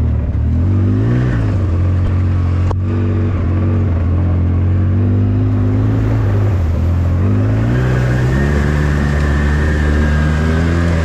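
Polaris RZR S 800's twin-cylinder engine running while driving, its pitch rising and falling as the throttle changes. A single sharp click comes about three seconds in.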